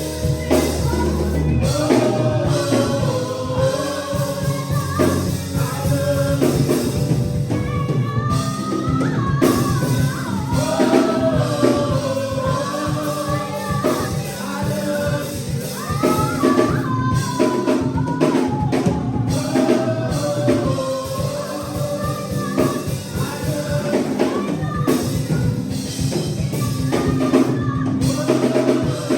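Gospel singing with a band: voices carry a melody over a drum kit playing a steady beat.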